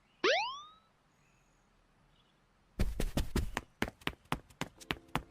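A quick rising whistle-like sound, then after a pause a run of about a dozen sharp taps that come faster toward the end.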